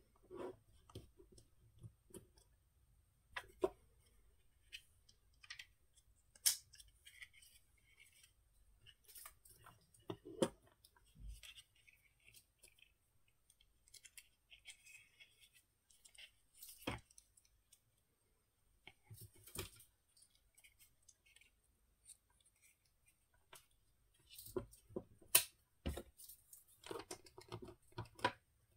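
Irregular clicks, taps and light scrapes of small metal parts and hard plastic being handled as a mini chainsaw's sprocket-side housing is put back together: a spring, washer and bolt are fitted and a small screwdriver is worked. A few sharp clicks stand out, with a busier run of clicks near the end.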